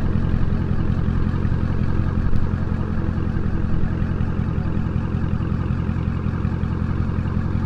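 2018 Dodge Challenger T/A 392's 6.4-litre HEMI V8 idling with a steady, deep exhaust rumble. The exhaust has the mid mufflers replaced by Dynomax mini race bullets and the resonators deleted, with the factory active valves still closed.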